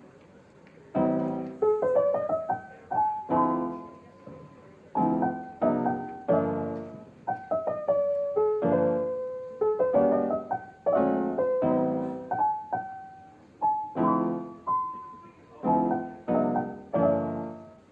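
Background piano music: gentle chords and single notes struck and left to fade, beginning about a second in.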